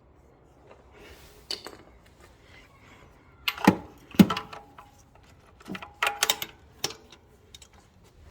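Hard objects being handled: a few scattered clicks and knocks, the loudest two close together about halfway through, then a quick cluster of clinks.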